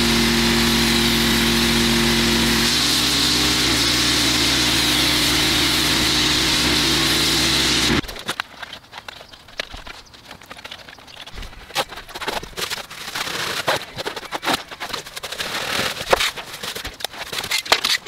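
A pressure washer running with its jet spraying: a loud, steady hiss over a motor hum that cuts off suddenly about eight seconds in. Then come quieter, irregular wet scrapes and knocks as sodden leaves and muck are scooped by hand out of a drainage channel.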